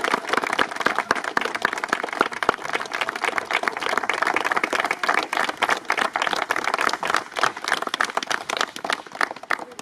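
A crowd of guests applauding, a dense, steady patter of many hands clapping that eases off near the end.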